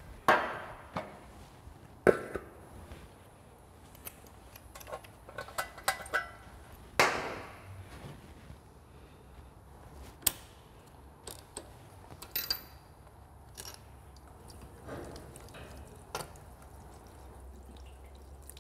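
Scattered clicks and knocks of tools and small metal parts being handled on a workbench, with a faint low hum underneath.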